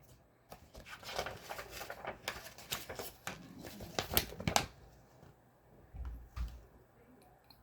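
Paper rustling and crinkling as a picture-book page is handled and turned, followed by two soft low thumps about six seconds in.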